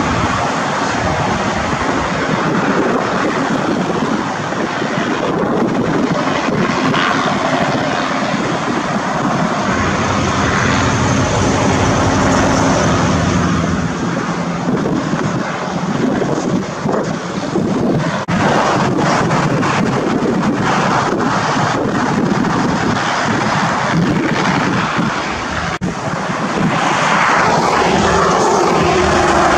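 Bell 206-type light turbine helicopter flying overhead: steady turbine and rotor noise, growing louder near the end.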